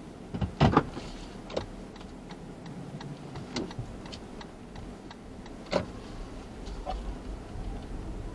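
Inside a stopped car, a car's turn signal ticks lightly as the car gets ready to pull away from the curb. A few louder clicks come about half a second in and again near six seconds. The engine and road noise swell near the end as the car starts moving.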